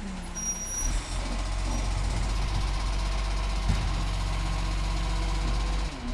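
Side-loader garbage truck's diesel engine running up to a steady, loud drone about a second in, as it powers the hydraulic arm to pick up a kerbside bin. The drone drops off sharply just before the end.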